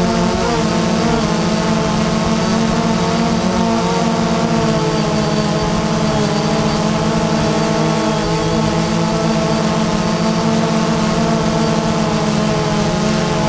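Small camera drone's electric motors and propellers buzzing steadily in flight, heard close up from the onboard camera: a loud hum of several tones that waver slightly in pitch over a hiss.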